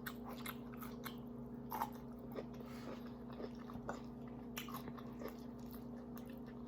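Close-miked chewing: a person eating creamy pasta with salmon and asparagus, with irregular wet mouth clicks and smacks over a faint steady hum.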